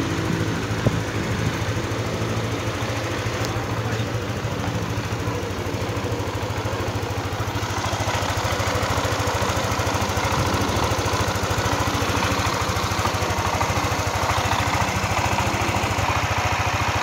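Yamaha NMAX first-generation single-cylinder, liquid-cooled four-stroke engine idling steadily. It is warming up to operating temperature after a top-end overhaul, so that the thermostat opens and air pockets bleed out of the cooling system.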